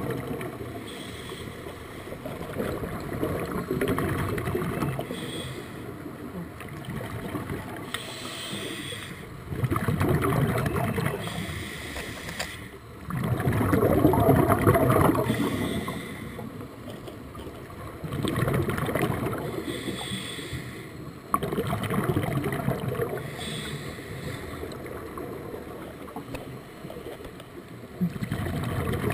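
Scuba breathing through a regulator heard underwater: swells of exhaled bubbles rumbling and gurgling about every four seconds, over a steady underwater hiss.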